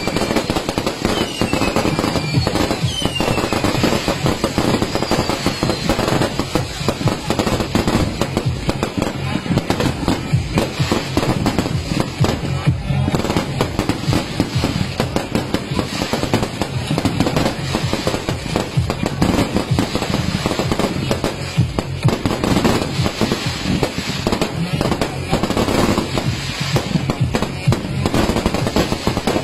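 A dense, continuous barrage of fireworks going off, rapid bangs and crackling with no break, with a few falling whistles in the first few seconds.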